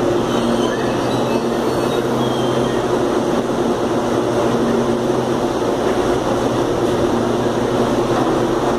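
CPTM 7000-series CAF electric multiple unit standing at the platform, its onboard equipment giving a steady, unbroken hum with a few low droning tones.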